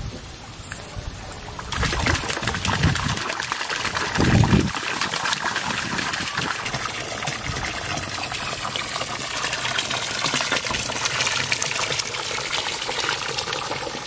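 Water suddenly starts gushing about two seconds in, as the pond pump is switched on and pushes water through a Laguna Pressure-Flo pressurized pond filter. It jets out of the filter's outlet fitting and splashes into the pond, then runs steadily. A few low rumbles come between about two and five seconds in.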